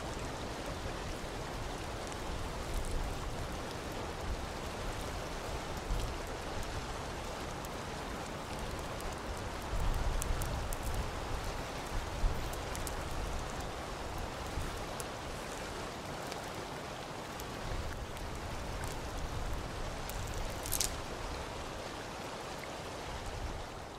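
Small twig-and-brush campfire burning with a steady hiss and a few sharp crackles and snaps, the clearest near the end.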